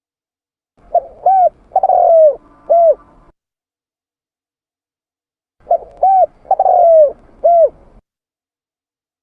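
Spotted dove cooing: two phrases about five seconds apart, each of four coos. The first note is short, the second rises and falls, the third is long and falling, and the last rises and falls again. There is dead silence between the phrases.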